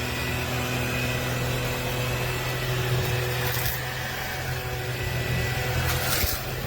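A motor running steadily with a constant low hum and a few steady higher tones, and a short burst of hiss about six seconds in.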